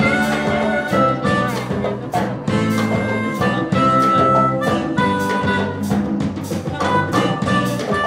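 Live jazz-funk band playing an instrumental: a harmonica carries the melody in held notes over saxophone, electric guitar and a drum kit keeping a steady beat.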